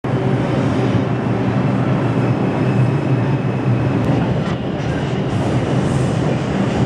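New York City subway car in motion, heard from inside: a loud, steady rumble of the train running on the rails, with a faint thin high tone over it.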